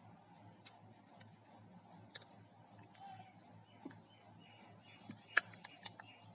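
Scattered light clicks and taps of small phone parts and flex cables being handled during a screen replacement, the loudest a little after five seconds in, over a steady low hum.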